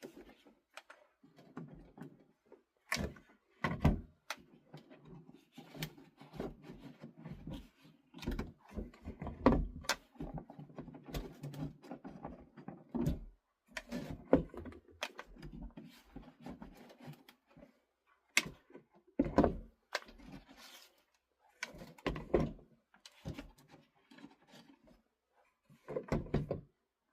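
Irregular thunks and knocks, with rustling and handling noise in between, as things are moved about in a small room.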